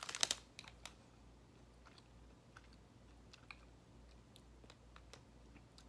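Person chewing a sour-coated fruit snack with the mouth closed: a quick burst of wet mouth clicks at the very start, then faint, scattered clicks as the chewing goes on.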